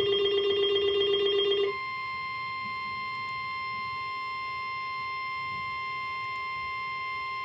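Weather radio alert: a steady buzzy alarm tone stops about a second and a half in, then a single steady high tone, the NOAA Weather Radio 1050 Hz warning alarm tone, sounds on unbroken. The tone signals that a warning, here a tornado warning, is about to be read.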